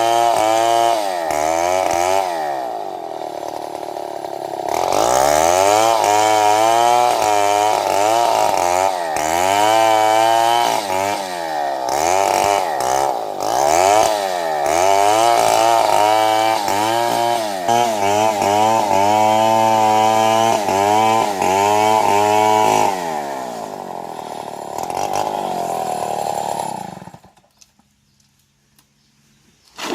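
Two-stroke chainsaw cutting wood at high revs, its engine pitch repeatedly dipping as the chain bites and climbing again. Near the end it drops to a lower, quieter running, then dies away to near silence.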